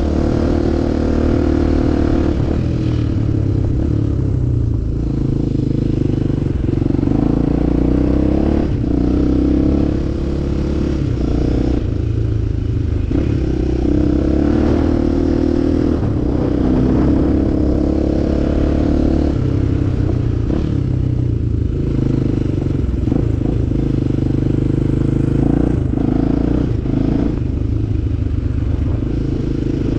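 Off-road enduro motorcycle engine running as the bike is ridden, its pitch climbing and dropping several times with throttle and gear changes.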